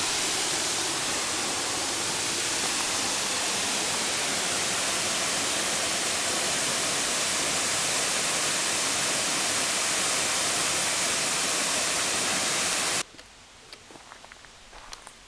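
Waterfall about 30 m high, a steady loud rush of falling water. About 13 s in it cuts off abruptly, and a much quieter woodland background follows with faint footsteps on a dirt path.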